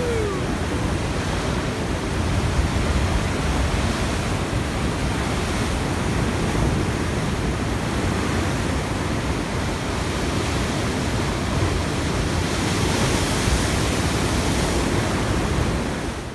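Heavy sea surf breaking against a stone breakwater and seawall: a loud, steady rush of crashing waves and spray.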